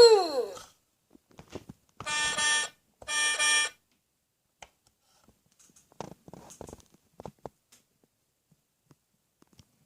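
Electronic toy sound effects: a warbling siren-like tone dies away, then two short buzzy beeps about a second apart, followed by a few faint clicks.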